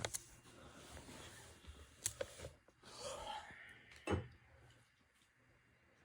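A few sharp clicks and knocks against a quiet background: one at the start, two close together just after two seconds, and one a little after four seconds.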